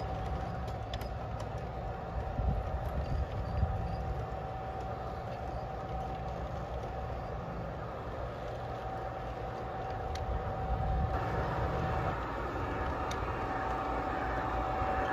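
G scale model freight train rolling steadily past on outdoor track: a low rumble of wheels on the rails with a steady whine and a few sharp clicks, growing a little louder near the end.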